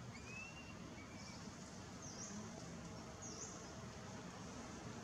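Faint outdoor background hiss with a few short, high bird chirps: a thin whistle near the start, then two quick dipping notes about a second apart.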